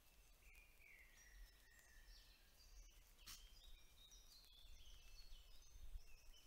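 Faint spring woodland birdsong: several songbirds singing overlapping phrases of high, quick, stepped notes, with one longer falling whistle about half a second in. A single sharp click sounds about three seconds in.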